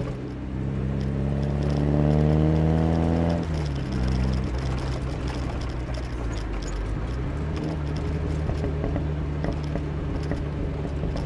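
Rebuilt 1.4-litre 8-valve four-cylinder engine of a 1982 Chevrolet Chevette accelerating. Its revs climb steadily for about three seconds, then drop suddenly, and it runs on at lower revs, rising gently again in the second half.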